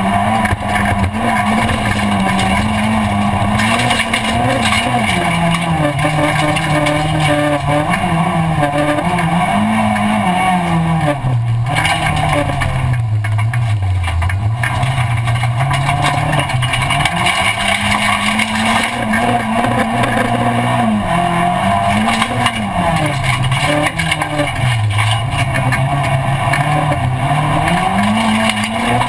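Rallycross car's engine heard from inside the cabin during a race, revs climbing and falling over and over, dropping lowest about halfway through.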